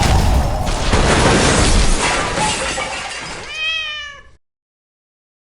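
A loud, noisy crashing clatter, then a single cat meow that falls in pitch; the sound cuts off abruptly just after the meow.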